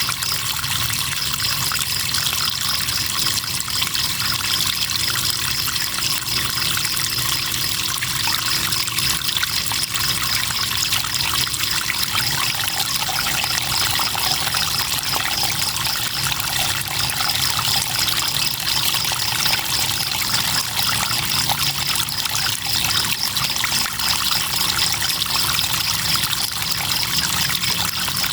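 River water trickling and flowing steadily, with crickets chirping in a continuous high trill over it.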